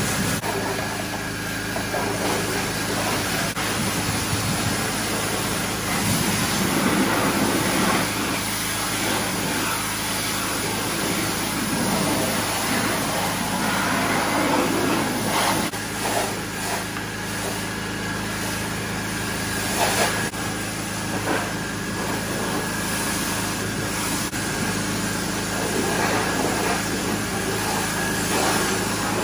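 Pressure washer running steadily, with the hiss of its water jet spraying a car's body and wheels, swelling and fading as the wand moves.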